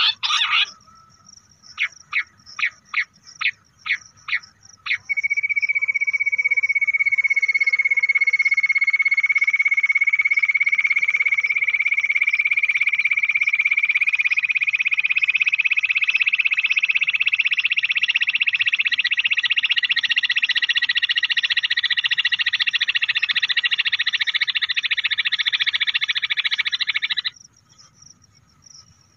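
Recorded bush quail call played as a hunting lure: about seven short chirps, then a long, fast trill that slowly rises in pitch and cuts off suddenly near the end.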